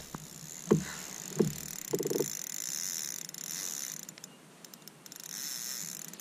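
Spinning reel being wound while playing a hooked flathead, a faint high hiss that comes and goes, with a few light knocks and a short rattle in the first couple of seconds.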